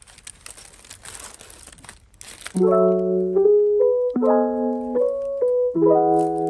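Faint crinkling of tissue paper being handled, then about two and a half seconds in, background music of soft electric piano chords comes in and dominates.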